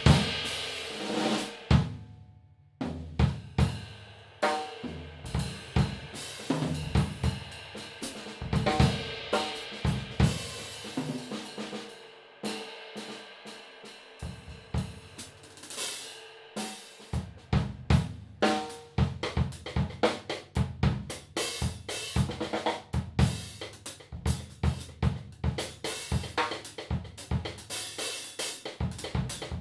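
Yamaha Oak Custom drum kit played as heard in the room, with snare, bass drum, hi-hat and cymbals in a steady groove. The playing stops briefly about two seconds in. Near the middle a lighter passage drops the bass drum for a few seconds before the full kit comes back.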